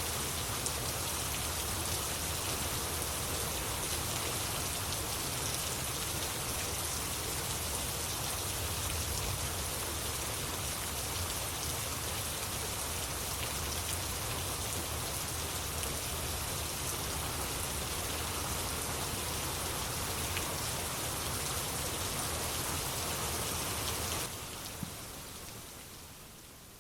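Steady rain falling. It cuts off abruptly near the end, leaving only a faint hiss.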